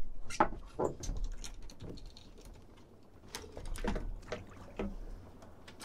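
Irregular light taps and knocks as tiny mackerel are unhooked from a sabiki rig and handled on a small boat's deck, over a low rumble of wind and water.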